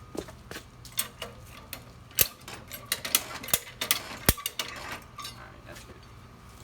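Irregular metallic clicks and clanks of the mower being handled and lifted higher on its tipped-up side, with two sharp knocks about two and four seconds in.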